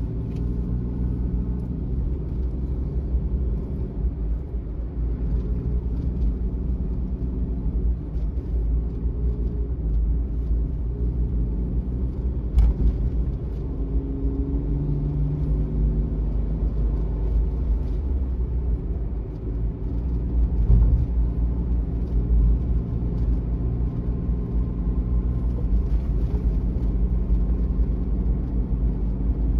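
Suzuki Every kei van's small three-cylinder engine running under way with tyre and road rumble, heard from inside the cabin. The engine note drifts up and down, and there is a single sharp click about twelve seconds in.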